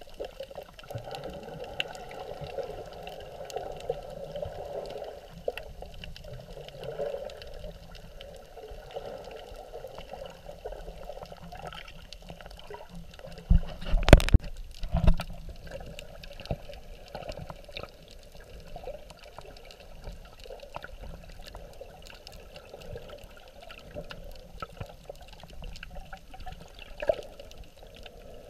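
Water moving around a camera held underwater while snorkeling, a steady churning wash with faint scattered clicks. A few loud thumps come about fourteen seconds in.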